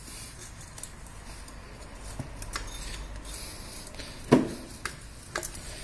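A loose K03 turbocharger and its rubber intake hose being handled and fitted together by hand: low scuffing with a few small clicks, and one sharp knock about four seconds in.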